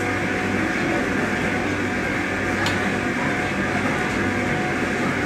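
Steady, loud gym room noise: a continuous mechanical whir with a low hum, like ventilation or running machines. There is a single faint click near the middle.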